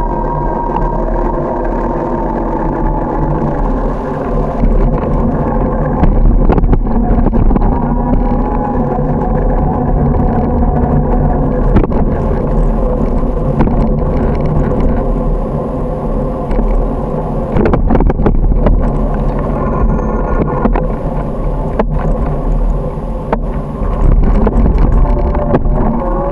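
Riding noise on a camera carried on a moving bicycle: a steady deep rumble of wind and road on the microphone, with wavering tones and a few short knocks.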